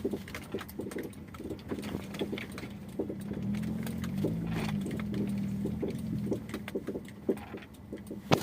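All-wheel-drive car running with a steady engine hum and irregular knocks and clicks throughout, the knocking from the rear of the car.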